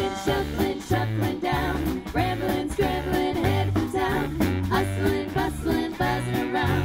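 Live swing band music: a vocal trio of women singing into microphones over electric bass, brass and a steady beat.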